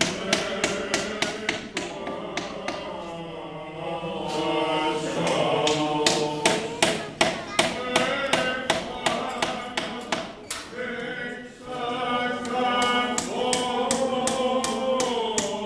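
Byzantine Orthodox chant, a voice singing long held and wavering notes, over frequent sharp irregular clicks or taps, several a second.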